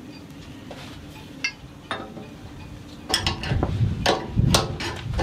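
Metal hardware and hand tools clinking and knocking: a couple of single clicks, then a busy run of sharp metallic clinks and knocks from about three seconds in.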